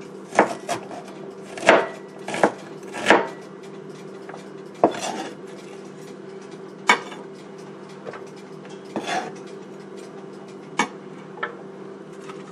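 Kitchen knife cutting ginger on a cutting board: about a dozen sharp knocks at irregular intervals, over a steady low hum.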